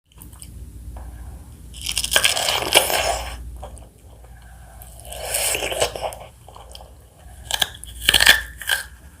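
Close-miked bites and chewing of fresh fruit: two long wet, crunchy bites followed by a run of sharp smacking clicks near the end.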